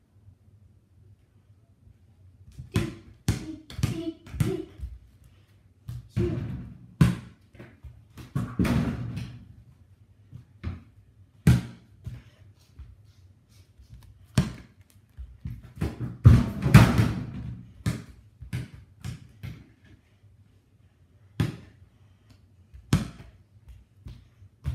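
A ball bouncing on a hard floor indoors, with irregular thuds from a child running and jumping.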